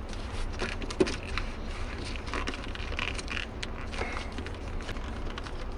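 Faint clicks and light scraping as a car's shift knob and its boot are handled and turned, over a steady low hum.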